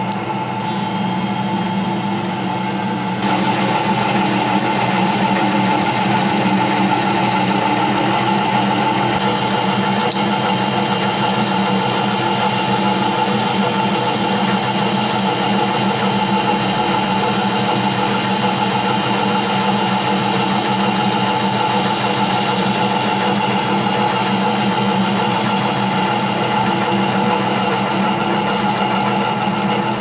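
Metal-cutting lathe running under power feed with a steady motor and gear whine while the tool takes a roughing cut on a white plastic cylinder, throwing off curled chips. The whine gets a little louder about three seconds in.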